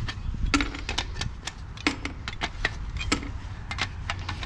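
Copper U-bends being snapped off an air-conditioner coil with pliers and dropped onto diamond-plate metal: irregular sharp metallic clicks and clinks over a steady low rumble.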